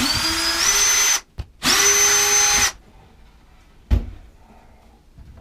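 Electric drill/driver running in two bursts of about a second each, its motor whine stepping up in pitch as it backs out a screw. A single sharp knock follows about four seconds in.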